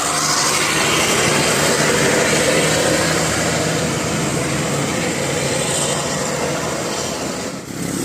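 Heavy vehicle driving past close by: a loud, steady rush of engine and tyre noise with no horn. It dips briefly near the end.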